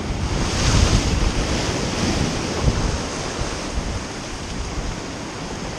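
Ocean waves surging and washing on the shore, a hissing wash swelling about half a second in and slowly ebbing, with wind buffeting the microphone in low rumbles.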